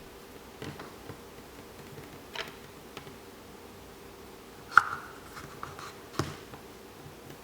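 A plastic Play-Doh shape cutter and dough being handled on a tabletop, making light taps and clicks. There are a few soft taps, a sharp click with a brief ring a little under five seconds in, and another tap about six seconds in.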